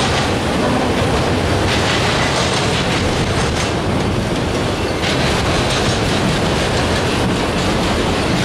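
Autorack cars of a freight train rolling past, a steady rumble and clatter of steel wheels on the rails.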